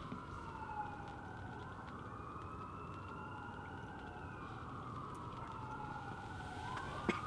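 Emergency siren wailing in the distance, its pitch sliding slowly up and down over a few seconds at a time. A sharp click comes near the end.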